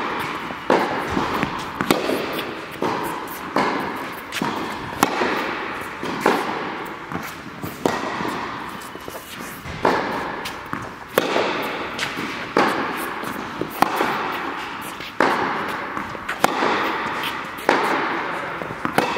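Tennis rally: rackets striking the ball and the ball bouncing on the court, a sharp pop every second or so. Each hit rings with echo off the indoor hall.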